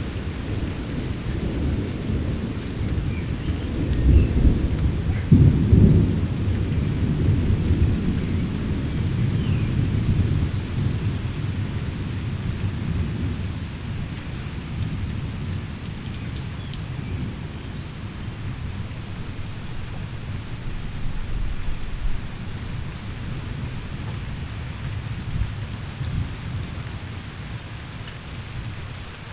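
Heavy rain pouring steadily, with a long, deep roll of thunder that swells about four to six seconds in and slowly dies away.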